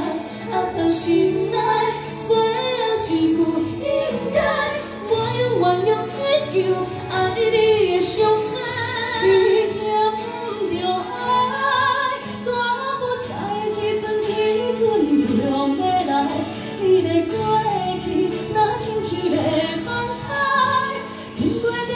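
Two women singing a pop ballad live into handheld microphones over a musical accompaniment with steady low notes, first together, then one voice carrying on alone.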